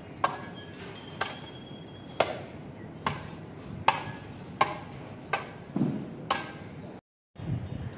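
Hammer blows on metal at railway construction work, about eight strikes evenly spaced roughly once a second, some ringing briefly.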